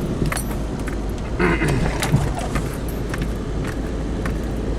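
Car driving on snow-covered roads, heard from inside the cabin: a steady low road and engine rumble with scattered light clicks and rattles.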